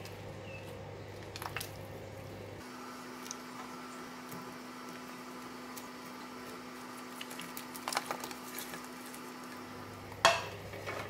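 Cut onions, leeks and radish dropped by hand into a stainless steel stockpot of water, with soft splashes and plops, over a steady low hum. A sharper knock of kitchenware comes near the end.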